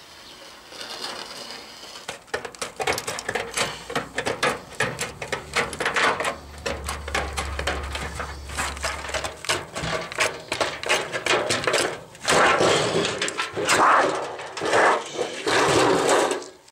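Hand tin snips cutting thin, rusty sheet steel, a rapid irregular run of crunching snips. Louder scraping and rattling bursts come in the last few seconds as the large sheet is bent and worked.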